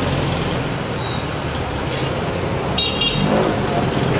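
Street traffic: a motor vehicle engine running steadily, with a short horn toot about three seconds in.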